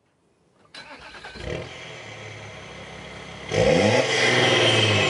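Audi A4 B8 3.0 TDI V6 diesel starting through a BBM Motorsport aftermarket exhaust, settling to a steady idle. About three and a half seconds in it is revved sharply, the pitch rising and then falling back.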